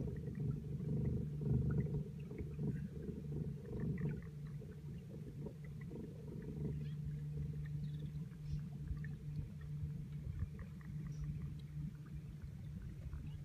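A low, steady hum runs throughout, with small drips and light splashes of water against it, from paddling a small boat on calm lake water.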